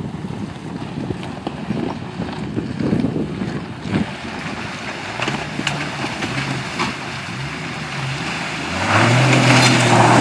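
Jeep Cherokee XJ engine running as the Jeep crosses a creek, growing louder and steadier from about nine seconds in as it pulls up the bank. Wind buffets the microphone in the first few seconds.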